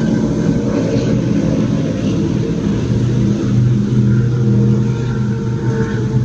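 Offshore racing powerboats' engines droning steadily as the boats run past at speed.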